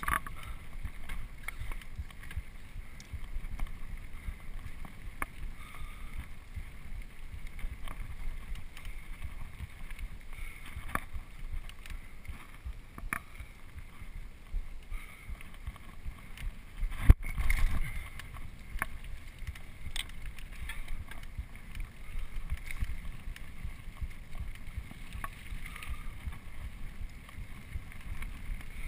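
Mountain bike riding fast over a dirt single-track trail: a steady low rumble of tyres and wind on the microphone, with scattered rattles and clicks from the bike and one loud knock a little past halfway.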